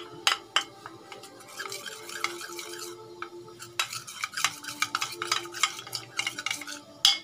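Metal spoon stirring a cornflour-and-cold-water slurry in a small steel bowl, scraping and clinking against the bowl's sides in quick, irregular strokes as it is mixed into a thick paste.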